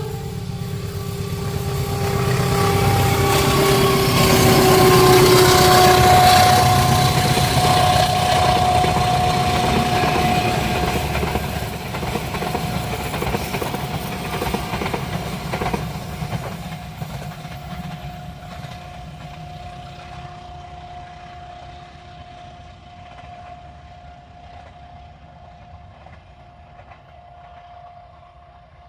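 Diesel locomotive and carriages of a passenger train passing on an uphill curve, loudest about five seconds in and then fading slowly as the train draws away. A steady high tone rides over the rumble of the train.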